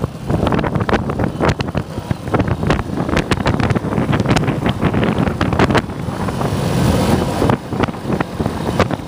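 Motorcycle taxi riding along a dirt road, heard from on the bike: engine running with wind on the microphone and many short knocks and rattles.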